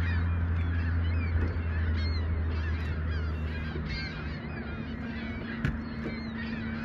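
A flock of birds calling over and over, many short calls overlapping, over a low steady motor hum that fades away over the first few seconds.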